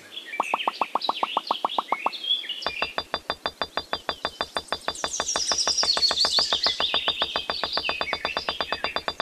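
Rapid, evenly spaced clicks, about seven or eight a second, like a cartoon sound effect for pieces popping into place. They stop briefly about two seconds in, then run on, with high bird-like chirps over them.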